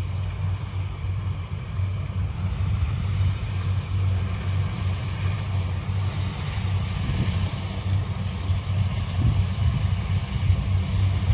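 Kubota DC-70 Plus combine harvester's diesel engine running steadily under load while it cuts rice: a low, even drone.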